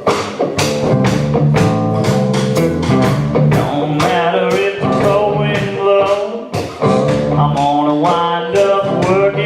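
Live song performance: guitar strummed in a steady rhythm, with a voice singing from about four seconds in.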